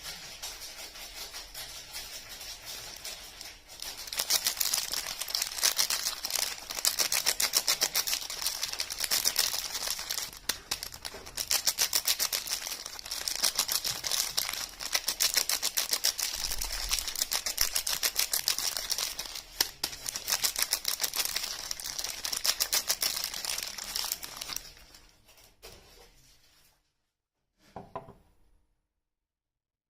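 Soap packaging being unwrapped by hand: a dense run of rapid crinkling and tearing of the wrapping, quieter at first and louder from about four seconds in. It stops abruptly near the end, followed by one short rustle.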